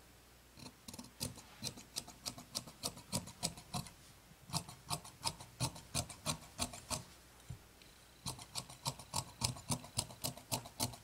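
Fabric shears snipping through rayon fabric: a quick run of crisp clicks, about four a second, pausing briefly a little past seven seconds in and then going on.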